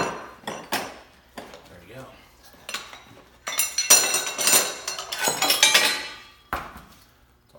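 Steel tire irons clinking against a motorcycle wheel rim as the last bead section of a mousse-fitted tire is levered over, a few sharp metallic knocks in the first second. About halfway through, the irons clatter and ring as they are laid down on the concrete floor, and there is a single thump near the end.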